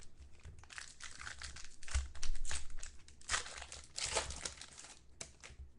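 Crinkling and rustling of trading-card pack wrappers as packs are opened and cards handled, with small clicks; loudest about two seconds in and again around three to four seconds in.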